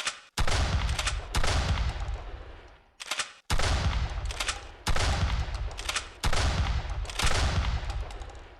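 Mossberg M590 pump-action shotgun firing about six loud shots, each with a long fading tail, roughly one to one and a half seconds apart, with short clicks at the start and about three seconds in.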